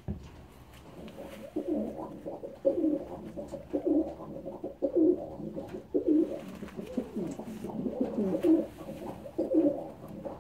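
Racing pigeon cooing, a low rolling call repeated about once a second, starting about a second and a half in.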